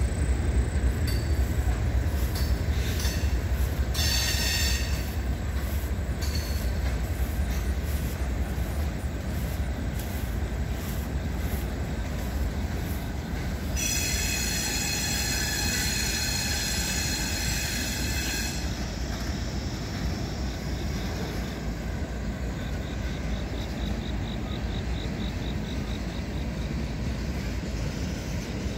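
Freight train of tank cars rolling past with a steady low rumble. Its wheels squeal briefly about four seconds in, then give a louder squeal of several high tones held for about four seconds midway.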